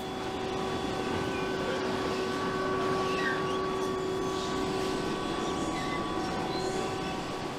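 Overhead crane carrying a suspended load: a steady electric motor whine with several held tones over factory background noise.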